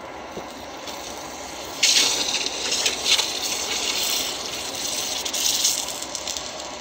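Red-hot coil-spring steel knife blade quenched in a bucket: the quenchant hisses and sizzles loudly from about two seconds in, in surges, easing off near the end. This is the hardening quench of the blade.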